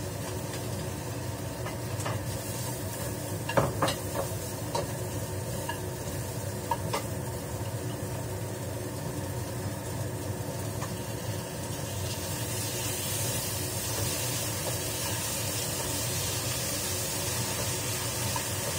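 Food sizzling in a wok as it is stir-fried with a spatula, with a few sharp knocks of the spatula against the pan. The sizzle grows louder about twelve seconds in, over a steady low hum.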